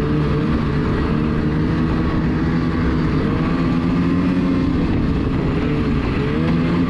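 Ski-Doo 600R E-TEC two-stroke snowmobile engine running steadily under throttle while riding, its pitch wavering a little and rising slightly near the end.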